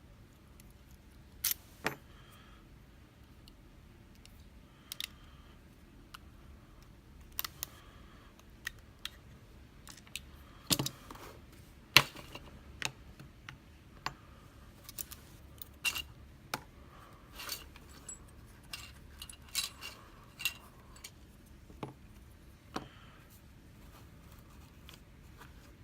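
Small metal tools and lock parts clicking and clinking as they are handled, about twenty irregular sharp clicks, a few with a brief metallic ring, while a lock is taken apart.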